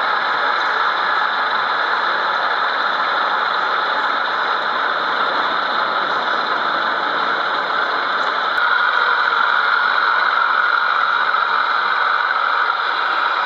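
Steady idling diesel engine sound from sound-fitted model diesel locomotives, played through their small onboard speakers; it gets a little louder about eight and a half seconds in.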